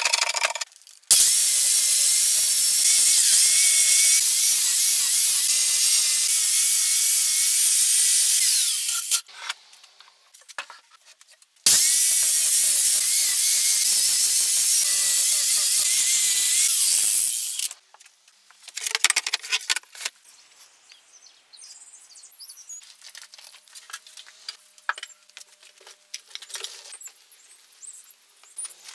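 A handheld corded power tool run against the weathered surface of an old hollow log, stripping it down, in two steady runs of about eight and six seconds with a high motor whine over a rough hiss. Each run stops sharply, and faint scattered clicks and rustles follow.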